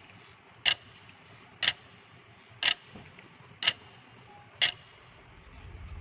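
Clock ticking: five sharp, evenly spaced ticks, one each second. A low rumble begins to swell near the end.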